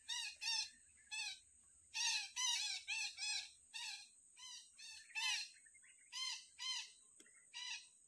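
Red-breasted parakeets (betet) calling: about sixteen short, arched notes repeated in irregular runs. A steady high insect whine runs behind them.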